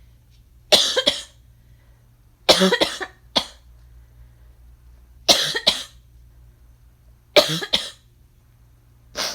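A person coughing in short bouts of two or three quick coughs each, five bouts about two seconds apart.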